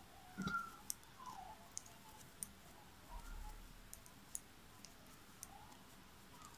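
Metal knitting needle tips clicking together faintly and irregularly as stitches are purled.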